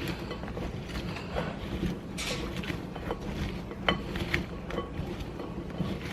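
Kitchen handling sounds: scattered light clicks and knocks of food prep, the sharpest about four seconds in, over a steady low hum.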